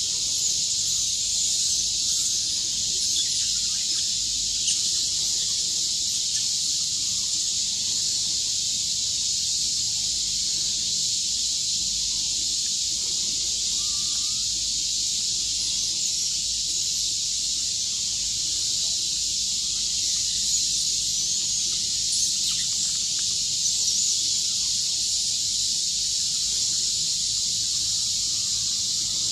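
Steady, high-pitched insect chorus droning without a break, with a few faint short chirps from time to time.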